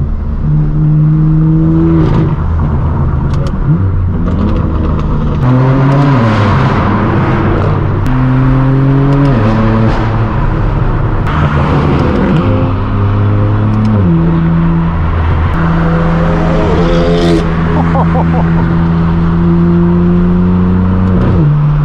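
Straight-piped BMW M4 F82's twin-turbo inline-six through a non-resonated AWE Track exhaust, driving: a loud drone that climbs in pitch a few times under acceleration and drops back sharply, then holds steady for the last several seconds.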